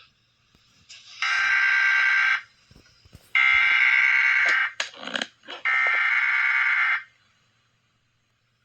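Emergency Alert System SAME header: three harsh, buzzy data bursts about a second each, a second apart, the digital code that opens an EAS alert. A short falling sweep sounds between the second and third burst.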